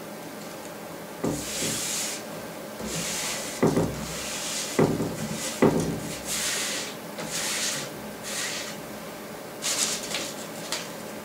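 Hands rubbing and pressing wet gummed paper tape down onto watercolour paper on a wooden board, heard as a run of short rubbing strokes, with a few dull knocks in the first half.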